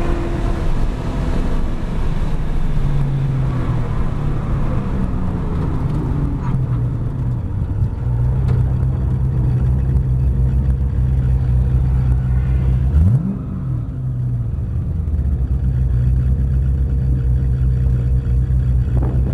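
Chevrolet Camaro 1LE's 6.2-litre V8 heard from inside the cabin: high revs at the start fall away as the car brakes hard from about 145 mph, and wind and tyre noise fade with the speed. It then runs steadily at low revs as the car rolls to a stop, with one quick throttle blip about thirteen seconds in.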